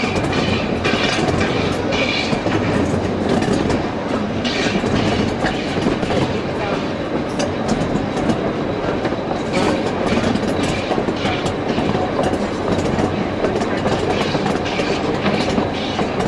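Narrow-gauge passenger carriage rolling along the track, its wheels making a steady clickety-clack over the rail joints, heard through an open carriage window.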